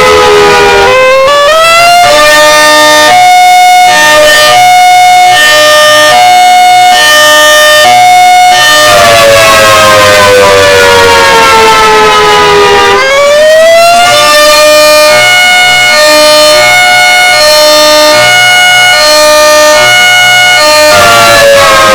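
Outdoor warning siren being tested, loud and steady in level. Its tone glides up, then switches back and forth between two pitches about once a second (a hi-lo pattern). Around the middle it slides slowly down, rises again, and returns to alternating before falling once more near the end.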